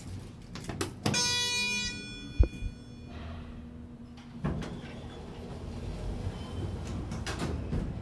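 Schindler 500A traction elevator: a floor button is pressed, an electronic tone sounds for about two seconds, and a sharp thump comes in the middle of it. From about four and a half seconds in, the car doors slide closed with a rising mechanical rush.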